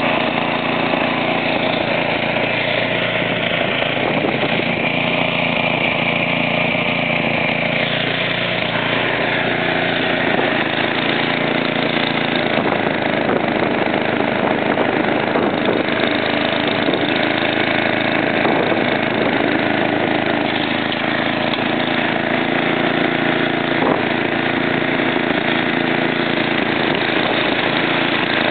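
MTD 8 hp snowblower's single-cylinder engine running steadily while clearing snow.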